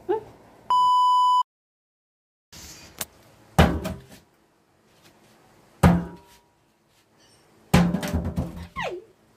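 A steady electronic beep lasting under a second, then three heavy thuds about two seconds apart as a meat cleaver is brought down hard into a stainless-steel kitchen sink, striking a live catfish to kill it.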